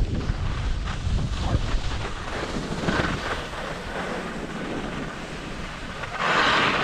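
Wind rushing over an action camera's microphone while skiing downhill, with skis hissing over the snow. A louder scrape of the skis comes near the end, likely from a turn.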